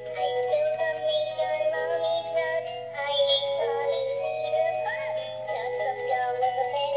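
Animated Christmas plush puppy toy singing a song in a synthetic, electronic-sounding voice over a tune.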